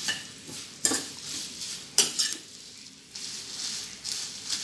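A steel spoon stirring Byadagi dried red chillies roasting in a little oil in a nonstick kadai: the dry chillies rustle and crackle lightly, and the spoon knocks sharply against the pan twice, about one and two seconds in. The light crackling is the sign that the chillies are roasting and starting to crisp.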